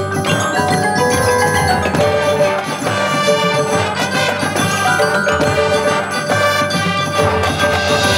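Marching band playing, with the front ensemble's mallet percussion (marimba, xylophone and glockenspiel) standing out among many sustained notes.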